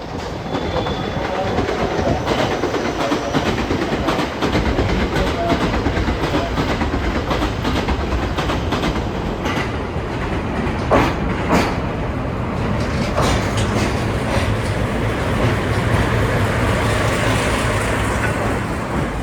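A train hauled by a JNR DE10 diesel-hydraulic locomotive runs into the station. A steady low engine drone grows stronger about four seconds in, over rolling wheel noise. A few sharp clacks of wheels over rail joints sound around the middle.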